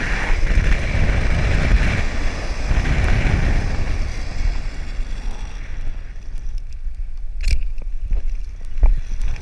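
Wind rushing and buffeting over a hand-held camera's microphone while the jumper swings on a bungy cord: a low rumble that eases after about four seconds. A sharp knock comes about seven and a half seconds in, and a smaller one near the end.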